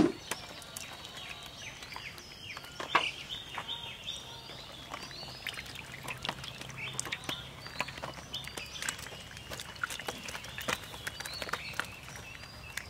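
Birds chirping over and over in short falling calls, with scattered light clicks and taps as fresh fish are handled on a banana leaf.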